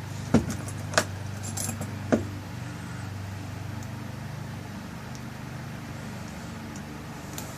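Small metal clicks and clinks of lock-cylinder parts being handled as the tail piece is screwed back onto a rekeyed cylinder, four sharp ones in the first couple of seconds. A steady low hum runs underneath.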